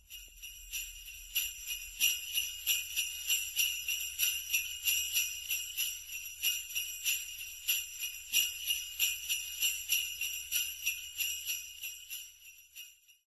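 Sleigh bells jingling, shaken in a steady rhythm of about three shakes a second, fading out near the end.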